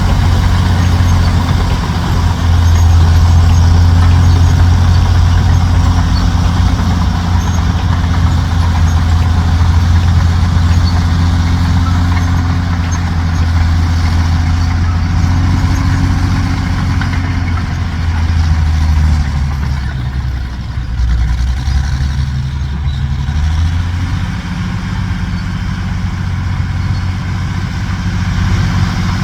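Heavy dump truck engine running steadily with a deep low hum; the note drops for a few seconds about two-thirds of the way through, then picks up again.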